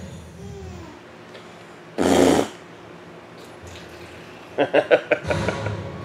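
A short, loud hiss-like burst about two seconds in, then quick plucked notes of background music starting near the end.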